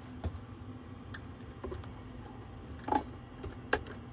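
Several sharp plastic clicks of control buttons being pressed on a CNC machine's VFD and controller while it powers up, spaced irregularly with the loudest two near the end, over a steady low hum from the machine's running fans.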